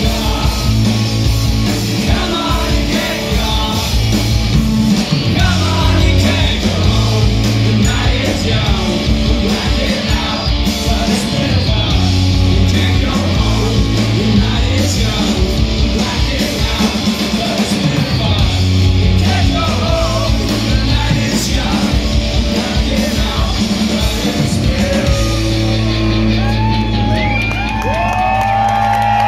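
Live rock band playing loud through the venue's PA: electric guitars, bass and drums, with sung vocals. About 25 seconds in, the drums stop and the song winds down on a held low note and sustained guitar tones that slide up and down in pitch.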